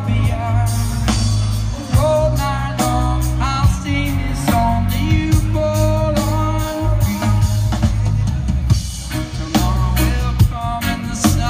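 Live reggae band playing through a large outdoor PA, heard from the audience: a sung vocal line over a drum kit and heavy, steady bass.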